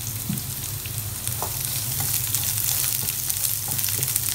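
Sliced onions sizzling and crackling in hot coconut oil in a nonstick pan as a wooden spatula stirs them. A steady low hum runs underneath.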